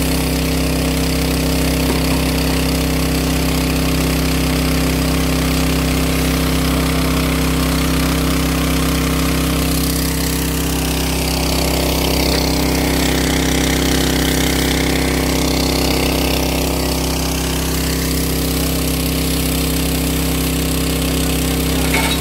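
Motor-driven pressure washer pump running steadily, with the hiss of its water jet spraying onto engine parts in a metal tray.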